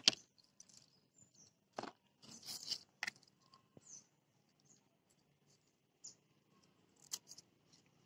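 Scissors cutting through horsetail (Equisetum) stems: a few short sharp snips, about two seconds in, again around two and a half to three seconds, and about seven seconds in.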